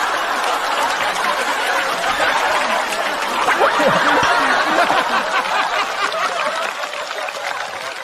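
Audience laughing and clapping after a punchline, with scattered individual laughs over it, easing off near the end.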